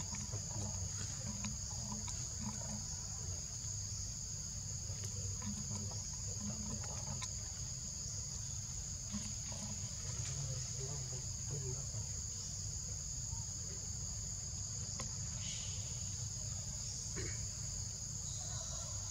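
Steady, unbroken high-pitched chorus of insects, such as crickets or cicadas, over a low steady rumble, with a few faint ticks.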